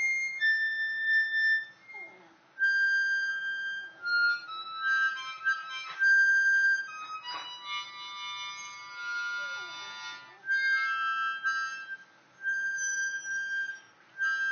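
Harmonica playing a blues in long held notes, with a dog's short howls sliding down in pitch a few times underneath.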